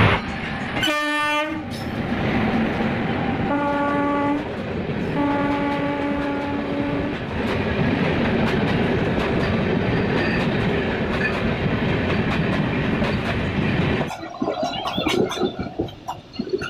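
A train passing close by on the next track: a locomotive horn sounds three times, a short blast about a second in and then two longer ones a few seconds later. The loud steady rush of its coaches going by follows, and near the end it falls away to scattered wheel clicks.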